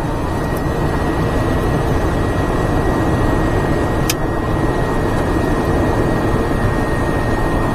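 Steady cabin noise of a 1987 Pontiac Fiero GT on the move: its 2.8 V6 engine and road noise with the heater blower fan running, blowing warm air. A brief click about four seconds in.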